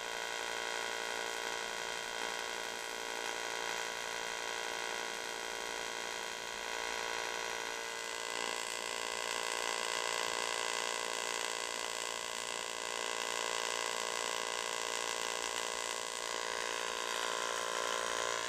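AC TIG welding arc on aluminium: a steady, even buzz that grows a little louder and brighter about eight seconds in.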